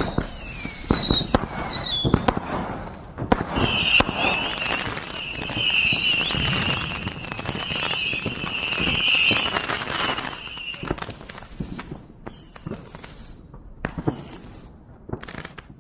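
Whistling fireworks: three falling whistles at the start, then several whistles together in a long wavering whistle over crackling and popping bangs, and three more falling whistles near the end.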